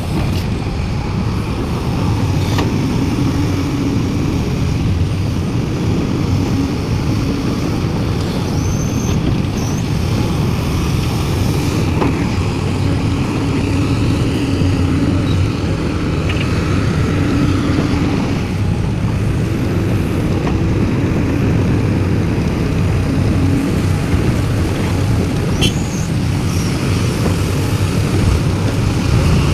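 Sumitomo SH350 excavator's diesel engine running under load, with its hydraulics working as it digs and loads soil into a dump truck. The pitch comes and goes every few seconds, and there are a few brief sharp knocks.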